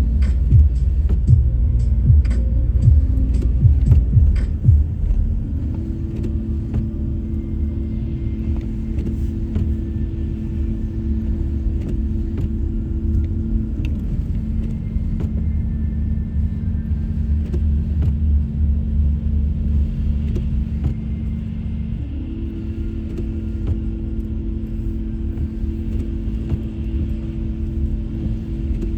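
Car driving on a snowy, icy road: a steady low road and engine rumble, with a run of sharp clicks and knocks over the first few seconds. A steady hum rides on top and steps up in pitch twice.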